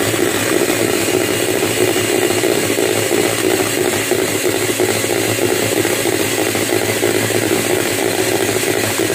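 Electric hand mixer running steadily, its twin wire beaters whipping thick cream in a plastic bowl.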